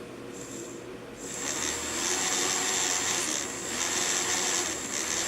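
Small fischertechnik electric motor spinning a propeller at full speed, a steady whirring with a thin high whine, getting louder about a second and a half in.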